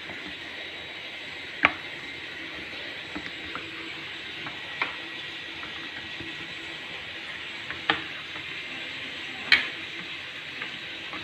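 Hand work on a washing machine door: a few sharp clicks and knocks at irregular intervals, with fainter ticks between them, over a steady hiss.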